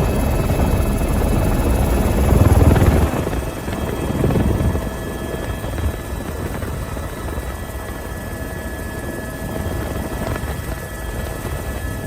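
Helicopter in flight: a steady drone of rotor and engine with a few steady tones over it, louder for the first three seconds, then easing.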